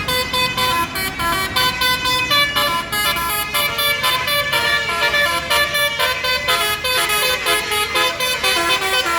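Basuri telolet musical bus horn playing a tune: a quick run of short pitched horn notes stepping up and down, with no break.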